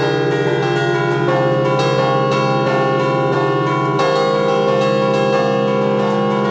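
Church bells played from a bell-ringer's keyboard in the Bergamasque 'suono a martello' style: stationary bells struck in quick succession by clappers pulled from levers. The result is a continuous, loud, overlapping melody of several tuned bells, heard close up inside the belfry.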